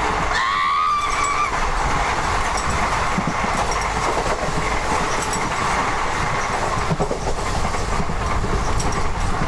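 Indian passenger train running, heard from an open coach doorway: a steady rumble and clatter of wheels on rail, with another train's coaches passing close alongside during the first few seconds. A brief, slightly rising high tone sounds about half a second in.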